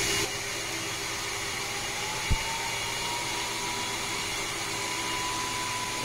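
Robot vacuum-mop running with a steady whirring noise and a faint tone that slowly rises in pitch. A single short thump comes about two seconds in.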